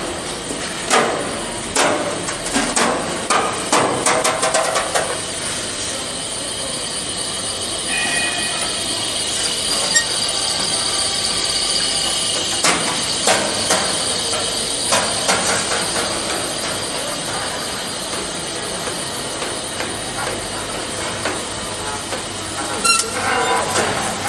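Metal roll forming factory machinery running, with a steady mechanical noise and frequent sharp metal clanks and knocks. The knocks are thickest at the start, again in the middle and near the end.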